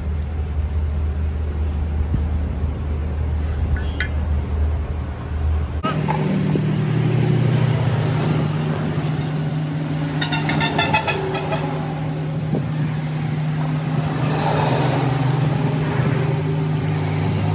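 A steady low machine hum, like a motor running, that changes abruptly to a higher steady hum about six seconds in, with a short run of rapid clicking around ten seconds in.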